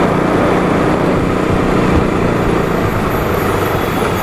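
KTM RC 200 single-cylinder motorcycle being ridden, its engine running steadily under a loud rush of wind noise on the microphone.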